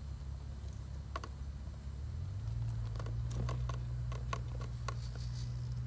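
RC rock crawler with a Hobbywing AXE brushless motor and portal axles crawling slowly over bricks and rock: a low hum from the motor and drivetrain that steps up a little in pitch about two seconds in, with a run of light clicks and taps as the tyres and chassis work against the stone.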